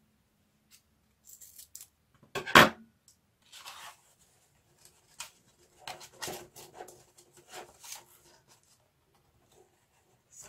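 Corrugated cardboard pieces being handled and slotted together by hand: scattered scrapes and rustles of cardboard rubbing on cardboard, with one louder knock about two and a half seconds in.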